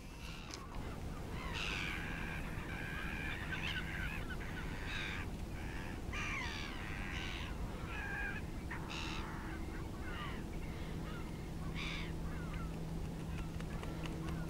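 Waterbirds calling: many short, harsh cries that rise and fall in pitch, some honk-like. Beneath them run a low background rumble and a steady low hum that comes and goes.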